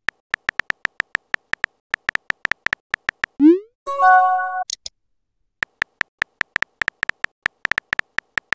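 Texting app sound effects: rapid keyboard-tap clicks as a message is typed, a short rising pop about three seconds in, then an electronic chime of several notes as a new message arrives, and more typing clicks after it.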